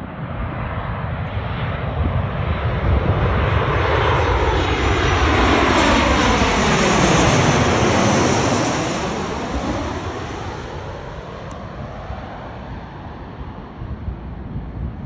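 Boeing 737-800's CFM56 turbofan engines on final approach, passing low overhead: the jet roar builds to its loudest about seven seconds in, with a high fan whine, then fades as the airliner moves away.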